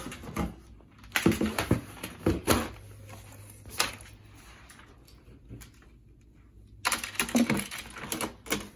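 A Lenovo computer keyboard and other desk items being handled and set into a cardboard box: bunches of plastic clacks, key rattles and knocks against cardboard, in two busy spells with a single knock between them.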